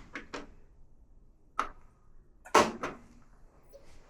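A few sharp clicks and knocks from handling the front-load washer as it is set up for a drain test. The loudest comes about two and a half seconds in.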